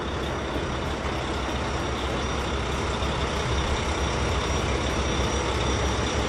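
A truck engine running steadily with a low rumble and a faint high whine; it cuts off abruptly at the end.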